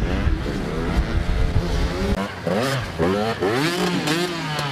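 Dirt-bike engine revving up and down again and again. A heavy low rumble under it cuts out about two seconds in, and from then on only the rising and falling revs are left.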